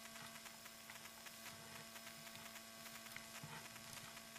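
Near silence: a faint steady electrical hum made of several even tones, with faint scattered ticks.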